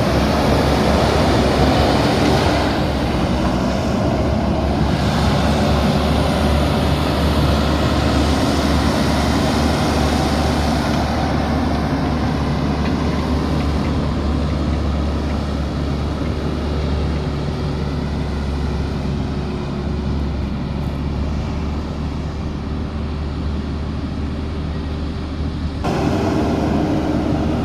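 Diesel engine of a JCB backhoe loader running steadily while it works, with an abrupt change in the sound near the end.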